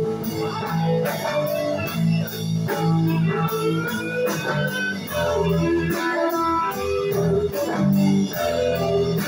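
Live blues-rock band playing: an electric guitar lead line with sustained, upward-bent notes over bass guitar and drums keeping a steady beat with cymbal strokes.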